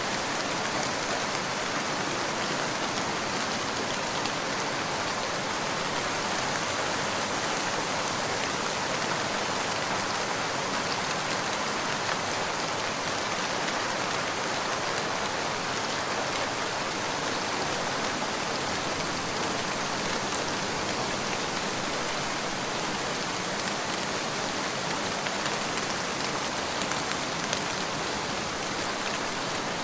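Steady rain falling on a surface, an even hiss with many fine drops and no let-up.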